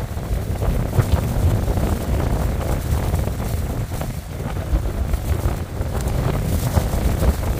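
Strong wind buffeting the microphone: a loud, uneven low rumble that rises and falls in gusts.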